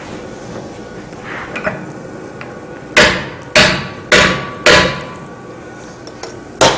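Hand hammer striking a steel drift through the eye of a red-hot axe head held in a leg vise. After a few seconds of faint clatter come four heavy blows, about two a second, then one more near the end, each ringing briefly.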